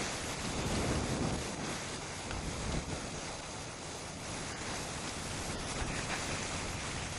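Steady wind noise rushing over the microphone, with a rumbling low end.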